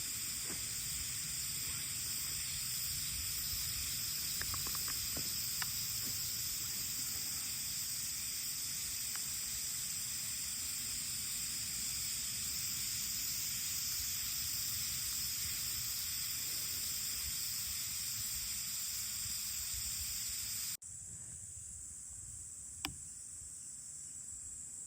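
Steady outdoor chorus of summer insects, a continuous high shrill over a low rumble. About 21 seconds in it cuts suddenly to a fainter insect chorus, and a single click follows.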